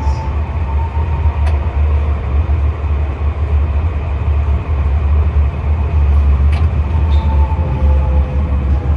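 Tram running on its rails, heard on board: a steady low rumble with a faint whining tone over it, and two sharp clicks, about a second and a half in and again near six and a half seconds.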